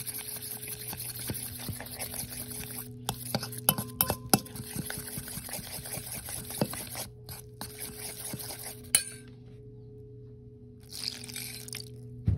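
A metal fork clinking and scraping against a stainless steel bowl, with many short sharp clinks as it stirs flour and water into a batter. A steady low hum runs underneath, and the clinks stop for the last few seconds.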